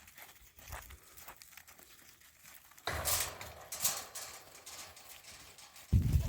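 Goat hooves clopping and scuffing in a series of light knocks, a sudden burst of rustling noise about three seconds in, and a loud low rumble starting near the end.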